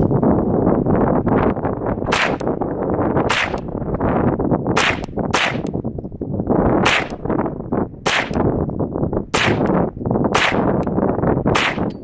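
Ruger PC Carbine in 9mm, a semi-automatic carbine, fired shot by shot: about nine sharp shots starting about two seconds in, irregularly spaced roughly a second apart, over steady wind noise on the microphone.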